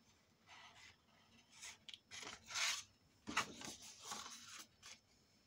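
White cardstock rustling and scraping as it is handled, slid and rubbed flat on a craft mat: a string of short, soft paper rustles, the strongest a little after the middle.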